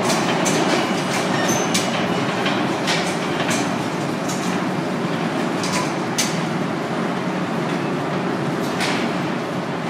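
New York City subway train running away down a curved tunnel: a steady rumble of wheels on rail with irregular sharp clanks and ticks, slowly fading as it pulls away.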